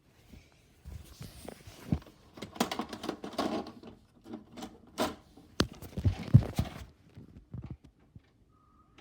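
A VHS player's tape mechanism making a weird noise: irregular clicks, knocks and scratchy rattling. It comes in fits for about six seconds and is loudest near the middle.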